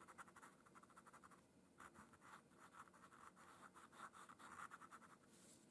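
Pastel pencil rubbed quickly back and forth over Pastelmat paper to blend the pastel, heard as faint, rapid scratching strokes with a short pause about a second and a half in.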